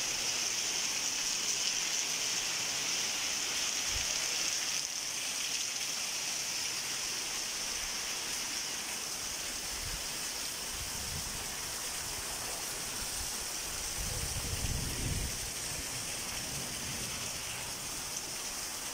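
Heavy rain falling steadily, a continuous hiss.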